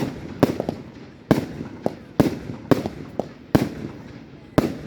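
Fireworks exploding in a quick, irregular string of about eight sharp bangs in under five seconds. Each bang trails off in a rolling echo.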